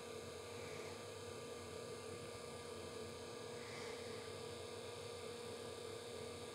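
Faint steady hum with a constant tone and background hiss, unchanging throughout: room tone.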